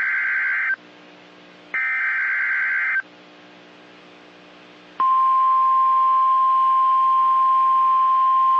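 NOAA Weather Radio emergency alert signal: the last two screeching digital bursts of the SAME data header, about a second apart. About two seconds later the steady single-pitch warning alarm tone begins, announcing a new severe weather warning.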